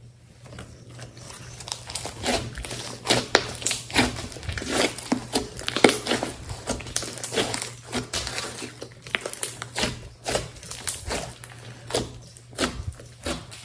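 Hands stretching, squeezing and folding a large mass of slime, giving off a dense, irregular run of short sticky clicks and squelches that thickens after the first second or so.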